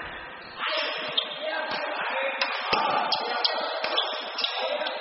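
Badminton rally: a string of sharp racket hits on the shuttlecock, roughly one every half second from about a second in, echoing in a large sports hall over background voices.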